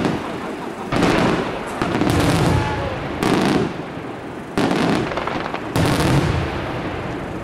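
Aerial firework shells bursting one after another, about five loud bangs a second or so apart, each trailing off in a rumbling echo with crackling between them.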